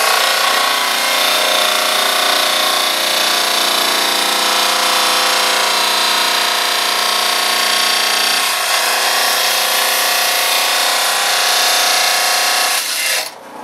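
A lapidary saw blade cuts through a piece of crystal opal with a steady high whine over a hiss. The cut stops near the end.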